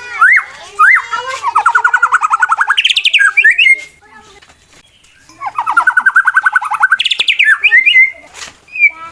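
White-rumped shama (murai batu) singing a challenge song: quick rising whistles, then a fast rattling trill, a short pause, and a second fast trill followed by high chattering notes.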